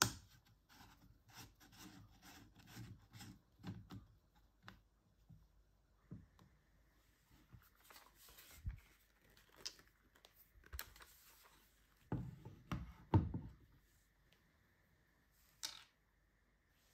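Screwdriver turning the plastic carbon-brush cap on a Makita 6347D cordless drill's motor housing, a run of short scraping turns about two a second. The drill is then handled, with scattered clicks and a few louder knocks as it is turned over and set down on a wooden table.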